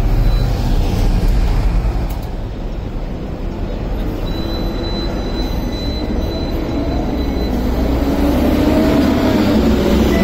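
Hong Kong double-decker electric trams at a stop: a steady low rumble of trams and street traffic. A thin high whine comes in about four seconds in, and wavering, rising tones build near the end as a second tram runs in along the rails behind.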